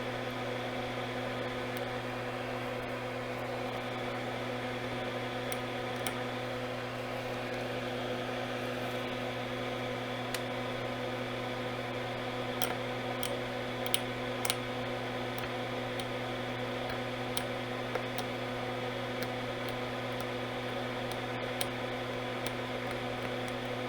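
Steady electrical hum of workbench equipment, with a few faint light clicks of small hand tools being handled at the board.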